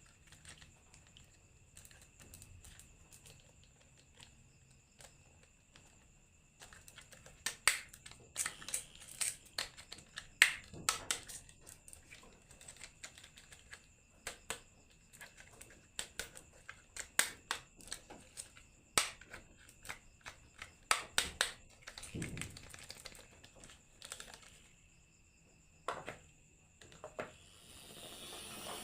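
Marbles clicking and clattering in quick, irregular runs as they roll and drop along a marble run, starting a few seconds in and easing off near the end.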